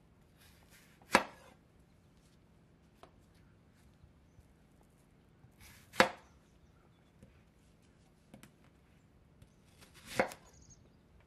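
Chef's knife slicing through a peeled white onion and knocking on a wooden cutting board three times, about four seconds apart. Each knock comes at the end of a brief crisp crunch of the blade through the onion, with a few faint clicks in between.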